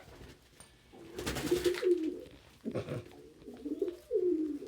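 Domestic pigeons cooing: several low, falling coos, with a brief rustling burst of noise about a second in.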